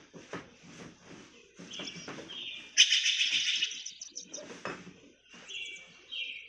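Forest birdsong: short chirping phrases repeated every second or so, with a loud rapid trill about three seconds in.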